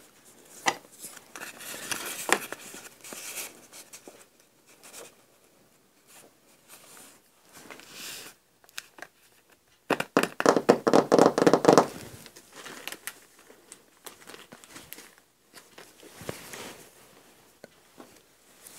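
Paper and craft pieces being handled, rustling and crinkling with scattered light clicks, and a louder run of rapid strokes lasting about two seconds, around ten seconds in.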